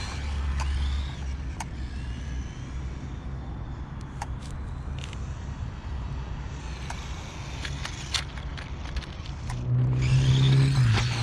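Small 1/18-scale RC buggy's 380 electric motor whining as it drives, rising in pitch near the start and again near the end, with scattered clicks under a steady low rumble.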